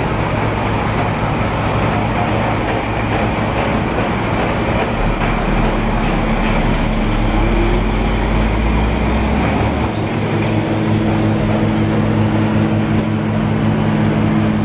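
A large engine running steadily under a loud, rushing noise. Its low hum shifts in pitch a little about halfway through.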